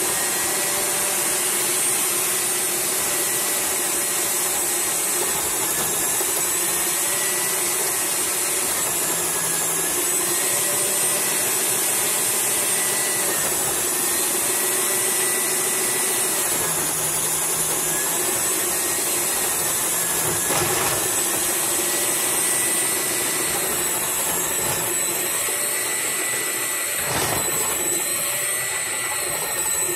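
KitchenAid stand mixer driving its food processor attachment, dicing potatoes: a steady motor whine whose pitch dips and recovers every few seconds as potatoes are pushed through the blades, with a couple of brief knocks.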